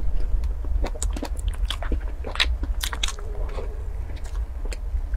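Close-miked chewing of strawberry cream cake: wet mouth clicks and smacks, several a second, over a steady low rumble.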